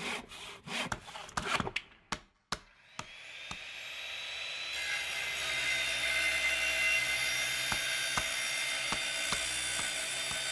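Sawing sound effect over a logo intro: a quick run of rasping strokes, then from about three seconds in a louder, steady cutting noise that swells, holds with a few faint ticks, and eases off near the end.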